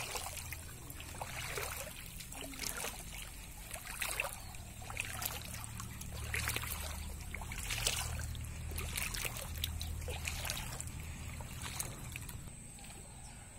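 Shallow muddy floodwater trickling and sloshing, with irregular rustles and splashes at an uneven pace, over a low steady rumble.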